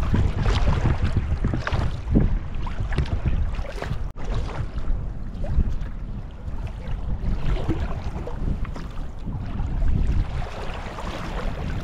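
Strong wind buffeting the microphone in a ragged low rumble, with water splashing and lapping around a sea kayak on choppy water as it is paddled.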